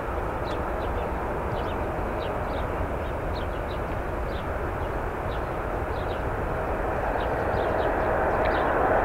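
Boeing 747-8F's four GEnx turbofan engines on final approach: a steady jet rumble with a fan whine, both growing louder toward the end as the aircraft nears.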